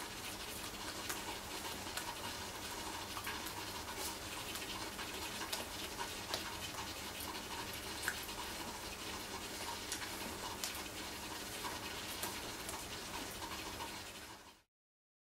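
Steady hiss of room noise picked up by a camera microphone, with scattered faint clicks; it fades out near the end.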